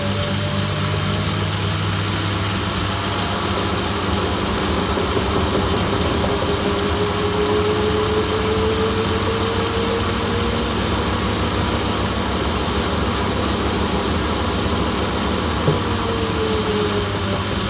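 Household washing machine running: a steady motor hum with a faint whine that slowly rises and falls in pitch as the drum turns. There is one small knock near the end.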